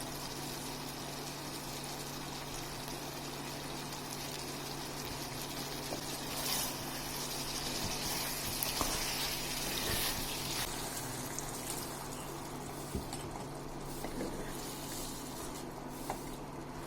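Chicken curry sizzling and bubbling in a pan, a steady hiss that swells a little midway, over a constant low hum, with a few faint clicks.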